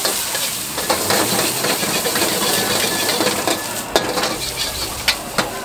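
Greens and bean sprouts sizzling in a hot wok as a metal ladle stirs and scrapes through them, with sharp clanks of the ladle on the wok, the clearest about four seconds in and a few more near the end.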